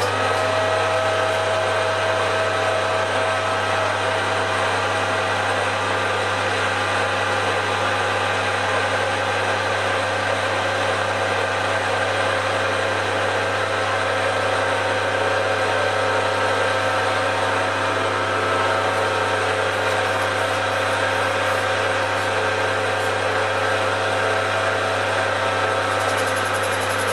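Metal-working lathe running at a steady speed, its four-jaw chuck spinning, with an even motor and drive hum that holds unchanged throughout.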